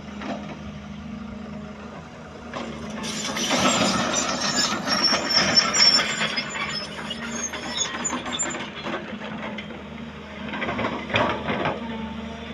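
Heavy construction machine's engine running steadily, with louder, harsher working noise from the machine rising over it from about 3 to 9 seconds in and again about 11 seconds in.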